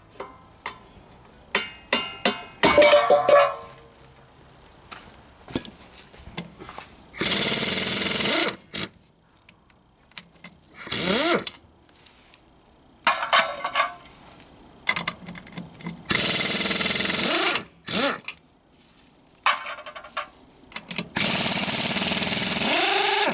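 Impact wrench hammering lug nuts loose in five bursts of one to two seconds each, its motor pitch rising as it spins up and falling as it stops, with short metal clicks between bursts.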